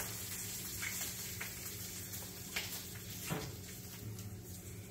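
Bacon sizzling in a frying pan, a steady hiss, with a few light clicks of a fork against the pan over a steady low hum.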